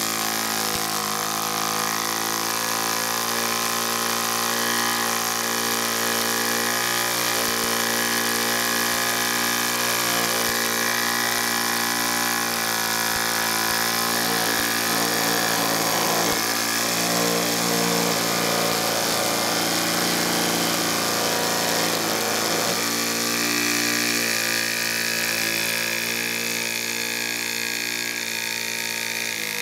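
Small brass model steam engine running fast on steam: a steady, even machine whir with the hiss of escaping steam.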